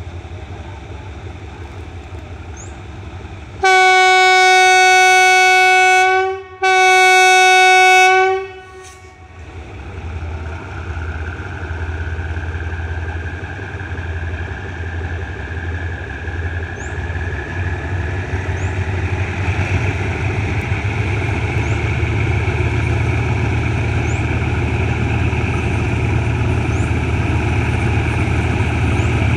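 Thai State Railway GE diesel locomotive sounding two long horn blasts, the first about two and a half seconds and the second about two seconds. Then its engine draws steadily louder as it approaches hauling its train, with a rising whine over a low drone.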